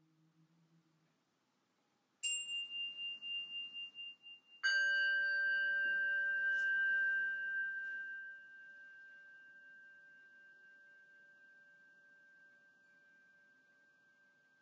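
A struck metal bell rings twice. About two seconds in comes a high ringing tone with a wavering pulse. A couple of seconds later a stronger, lower, fuller strike rings on and fades away slowly over about ten seconds.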